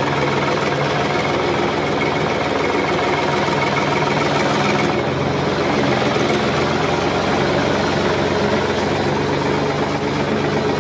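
Farm machinery engine running steadily at a constant pitch, with a slight change in its sound about five seconds in.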